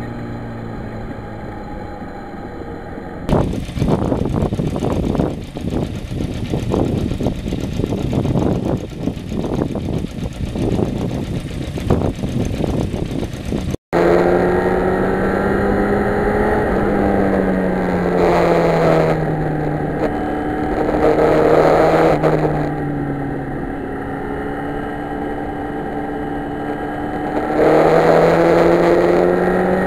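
Yamaha FZR1000 inline-four engine running while riding at road speed. From a few seconds in, about ten seconds of gusty wind rumble on the microphone drowns it out; after a sudden cut the engine comes through clearly, its pitch rising and falling with the throttle.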